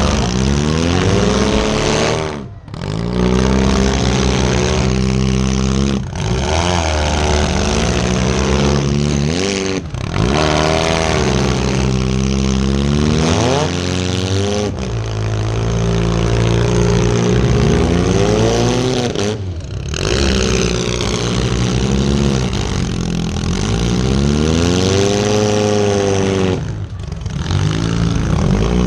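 Compact demolition derby car's engine revving up and down over and over, each rev rising and falling in pitch, with brief sharp drops in the sound every few seconds.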